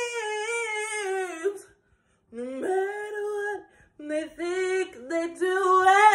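A woman singing unaccompanied: a long wavering held note, a short break about two seconds in, then more drawn-out phrases that climb in pitch near the end.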